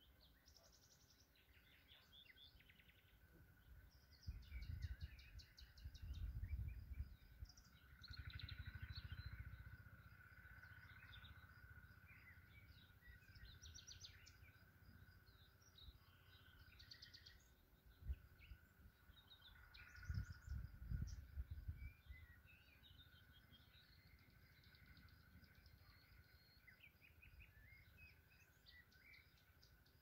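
Faint birdsong from several songbirds, many short chirps and trills throughout, over a steady thin high note. A few stretches of low rumble, the loudest sounds here, come about four, eight and twenty seconds in.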